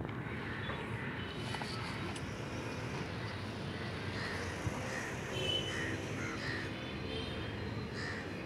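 Crows cawing repeatedly, many short calls, over steady outdoor background noise.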